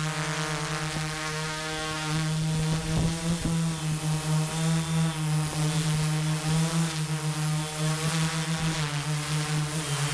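Tarot Iron Man 650 multirotor's Turnigy Multistar 4822 690Kv motors and propellers humming steadily in flight, heard from the onboard camera, the pitch wavering slightly as the throttle shifts while it flies low and descends.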